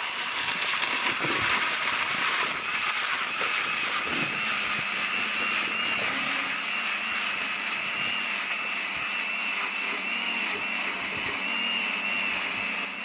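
Electric blender running steadily while blending papaya juice, a continuous motor whine with a slightly wavering pitch that dies away near the end.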